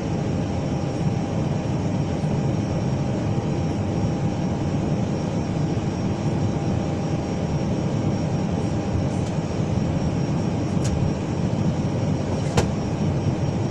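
Steady airliner cabin noise from inside an Airbus at the gate, its jet engines running at idle, with a faint constant whine over a deep rumble. Two short clicks near the end, the second the loudest moment.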